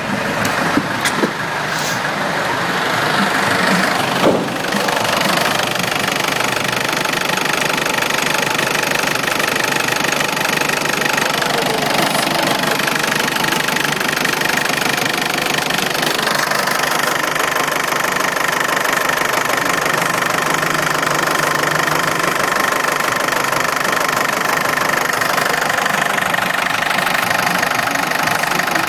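Fiat Ducato 2.5 TD (8140.47) four-cylinder turbo-diesel engine idling steadily with an even diesel clatter.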